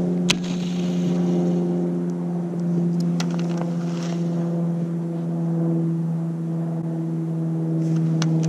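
A steady hum at one unchanging pitch, with a few faint clicks over it.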